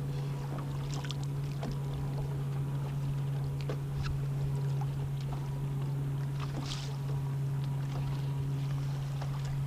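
A steady low hum from the fishing boat, with a few faint clicks and taps.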